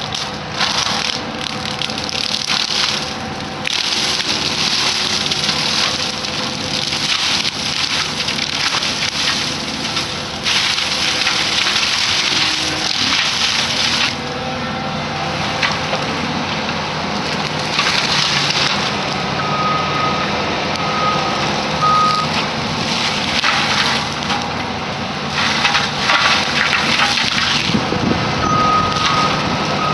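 Excavator mower running, its cutting head grinding through brush and small trees in loud spells that come and go. The machine's backup alarm beeps in two stretches, about two-thirds of the way through and again near the end.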